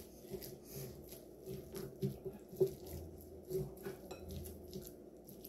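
A spoon stirring thick oat, banana and peanut butter cookie dough in a glass mixing bowl: soft, irregular clinks and scrapes against the glass.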